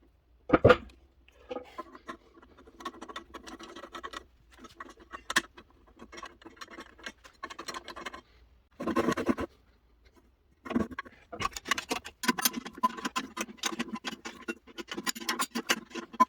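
Irregular scraping and rubbing of a hand tool on a workshop piece, in uneven stretches, with a sharp knock about half a second in and a louder burst about nine seconds in.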